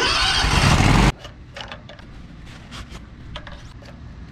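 A loud rush of noise for about a second that cuts off suddenly, then a few light clicks and rattles as the yellow-capped plastic dipstick of the Kawasaki mower engine is handled to check the fresh oil level.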